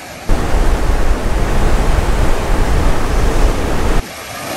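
Strong wind buffeting the microphone: a loud, steady rushing noise with a heavy low rumble that starts abruptly just after the start and cuts off abruptly about four seconds in.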